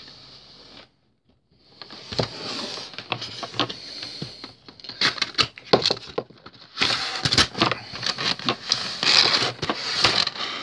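Plastic packaging being handled: the clear plastic film and moulded plastic tray of a model-aircraft box crinkling and crackling with quick clicks, starting about a second and a half in.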